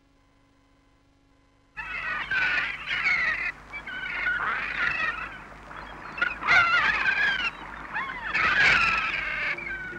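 A flock of gulls calling, many cries overlapping, starting suddenly about two seconds in after near silence.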